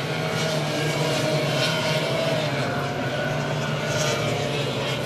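Several two-stroke racing kart engines, the Yamaha KT100s of the Junior National Light class, buzzing around the circuit together, their pitches rising and falling slightly as the karts accelerate and brake.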